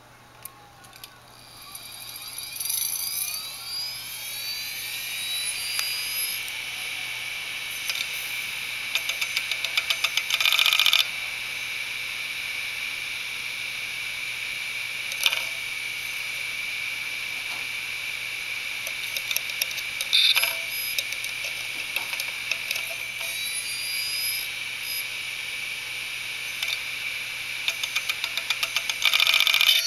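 Opened hard disk drive powering up: the spindle motor's whine rises in pitch as the platters spin up over about two seconds, then holds steady and high. Runs of rapid clicking from the head actuator seeking across the platters come about a third of the way in and again near the end, with a few single clicks between.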